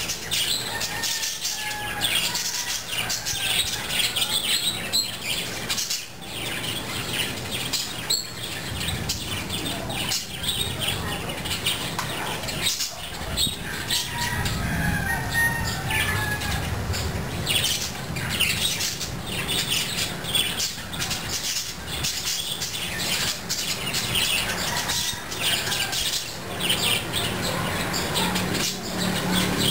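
A flock of birds chirping and squawking, with a continual flutter of wings.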